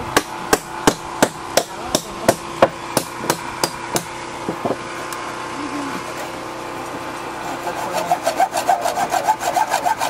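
Hand hacksaw sawing into a guadua bamboo pole. For the first four or five seconds there is a sharp click about three times a second; then comes a steadier rasp, and from about eight seconds in the strokes are faster, with a ringing edge.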